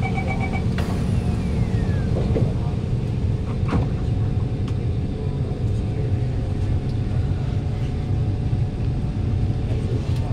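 Steady low rumble inside a stationary KHI C151 MRT train car at the platform, with a brief sliding sound and a faint knock in the first few seconds as the doors close.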